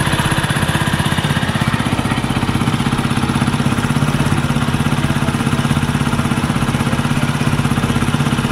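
A Hero motorcycle's single-cylinder four-stroke engine idling steadily with an even, fast putter.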